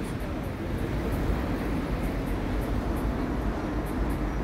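Steady city street noise: a low, even rumble of traffic with no distinct event.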